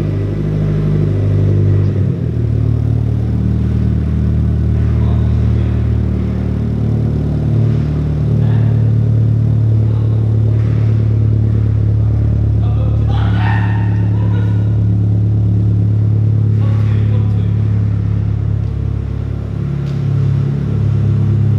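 Nissan Silvia S15's SR20DET turbocharged four-cylinder engine running at a steady speed, its note shifting slightly about two seconds in.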